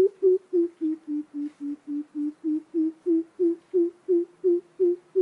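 Greater coucal giving its deep hooting call: a long, even run of low 'boop' notes, about three a second, dipping a little in pitch partway through and then rising back.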